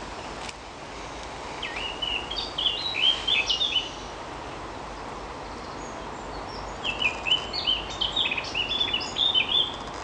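European robin singing: two quick, high warbling phrases of about two seconds each, a few seconds apart, over steady background noise.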